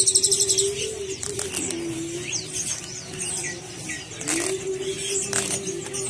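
Caged songbirds chirping all around: short, high, scattered chirps over a steady low hum. A few brief rustles come from a cardboard box being handled and opened.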